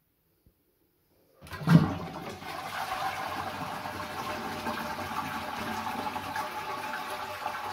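Toilet flushed with its water supply turned off. It starts suddenly about a second and a half in with a loud surge, then runs on as a steady rush of water as the cistern empties through its siphon without refilling.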